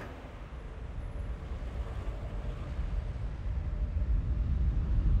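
A deep, low rumble that grows steadily louder.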